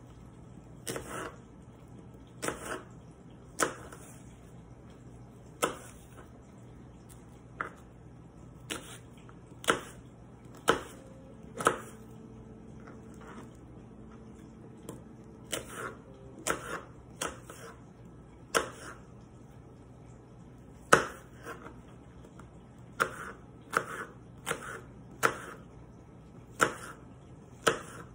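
Kitchen knife slicing an apple on a cutting board: irregular sharp knocks of the blade striking the board, roughly one a second.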